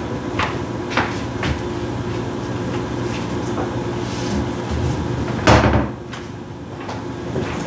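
Kitchen cupboard doors being opened and shut while an item is fetched: a few light knocks in the first second and a half, then a louder bang of a door closing about five and a half seconds in. A steady low hum runs underneath.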